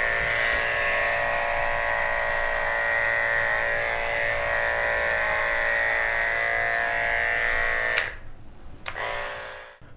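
Corded professional electric pet hair clipper running with a steady hum as it is tried on a Persian cat's coat. The hum drops off about eight seconds in, returns faintly for a moment and then stops.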